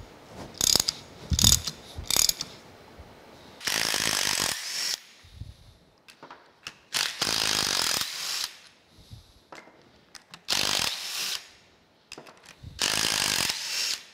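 A hand wrench clicking three times on a bolt, then a DeWalt cordless driver with a socket running in four bursts of about a second each, spinning bolts out of a rusty cast-iron planer feed mechanism.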